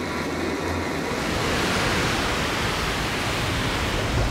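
Rushing, churning water, a steady hiss that swells from about a second in. A low hum underneath fades out just before that.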